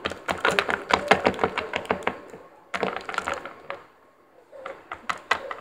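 Quick, irregular taps and knocks of small plastic Littlest Pet Shop toy figures being bounced on a countertop by sticks held from above. A dense run of taps lasts about two seconds, then comes a short pause and another run, then a few scattered taps near the end.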